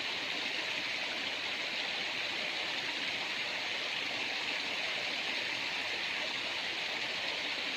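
Small river flowing, a steady, even rush of water.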